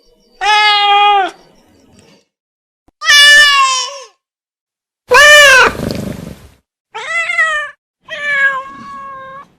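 Domestic cat meowing five times, each a drawn-out meow that rises and then falls in pitch, with short pauses between them.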